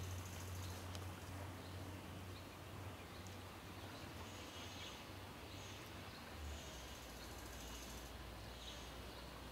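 Faint low drone of a distant Uerdinger VT 98 railbus's diesel engines. The hum fades over the first few seconds and drops to a lower note about six and a half seconds in. Short high chirps repeat over it.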